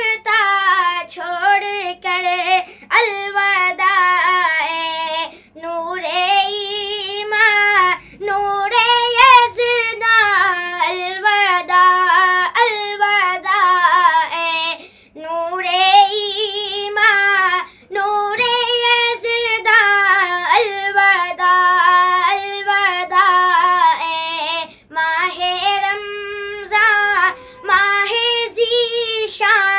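A boy singing a devotional Urdu nasheed unaccompanied, in a high voice with wavering held notes, phrase after phrase with short breaths between them.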